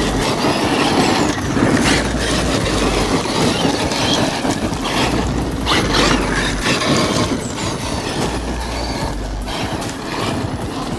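Traxxas X-Maxx 8S electric RC monster truck driving hard on gravel: brushless motor and drivetrain running, with tires spraying loose gravel and dust as it slides.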